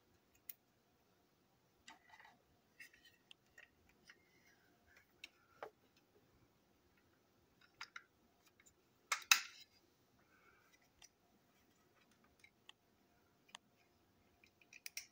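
Scattered small plastic clicks and taps as the parts of a toy train engine are handled and fitted together, with one louder clack about nine seconds in.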